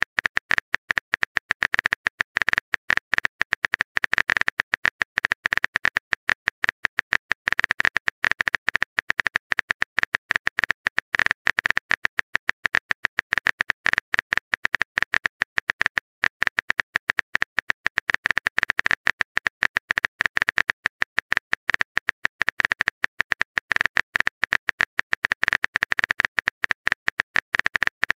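Phone keyboard typing sound effect: rapid keystroke clicks, many a second, running without pause as a long message is typed out.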